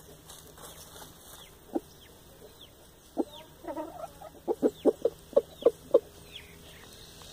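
Aseel rooster clucking in short, low notes. There are a couple of single clucks, then a quick run of about six near the end, roughly four a second.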